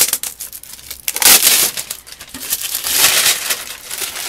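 Clear plastic packaging crinkling and crackling as it is cut open and pulled off a dartboard, in loud bursts about a second in and again around three seconds in.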